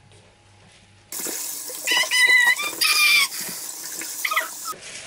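Kitchen tap turned on, water running into the sink for about three and a half seconds, then shut off abruptly. Two short high squeaky tones sound over the running water in the middle.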